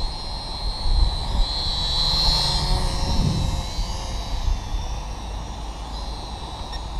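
Syma X5SW toy quadcopter's four small electric motors and propellers whining in flight, louder about two seconds in and fading as it moves away, over a low rumble of wind.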